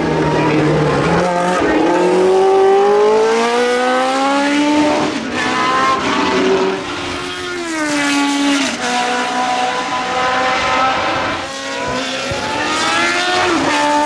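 Tyrrell P34's Cosworth DFV V8 racing engine under hard acceleration, its pitch climbing with each gear and dropping sharply several times as it shifts and eases off. It holds a steadier note for a few seconds, then climbs again near the end.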